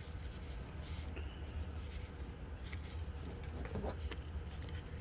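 Light rustling and small scattered clicks of a foil trading-card pack being opened and its cards handled, over a steady low hum.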